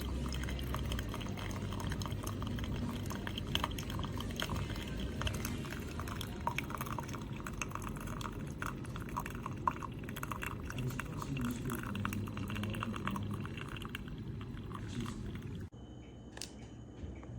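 Famiworths mini single-serve coffee maker brewing: hot water gurgles and coffee pours steadily into the cup, with small crackles. It cuts off suddenly about sixteen seconds in as the brew finishes.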